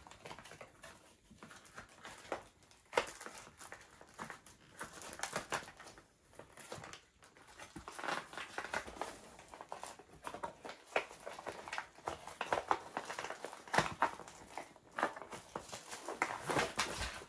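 Packaging of a diamond painting kit being opened by hand: irregular crinkling, crackling and rustling, busier and louder from about eight seconds in.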